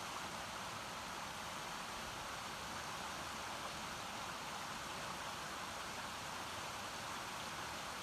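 Mountain stream running over rocks, a steady rushing of water with no change in level.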